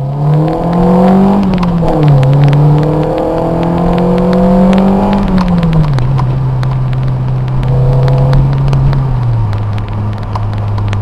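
1991 Toyota Celica GT-S's 2.2 L 5S-FE four-cylinder running through a Pacesetter Monza cat-back exhaust. The engine climbs in pitch, dips briefly about two seconds in, climbs again, then falls back about six seconds in and settles lower near the end.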